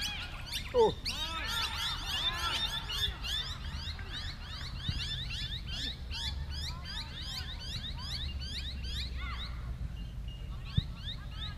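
Birds chirping continuously: rapid, overlapping rising-and-falling chirps at several pitches that thin out near the end. A brief, louder falling call stands out about a second in.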